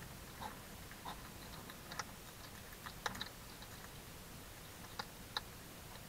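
A hedgehog crunching dry kibble from a bowl: irregular sharp crunches and clicks, with a quick cluster about three seconds in and two more near five seconds.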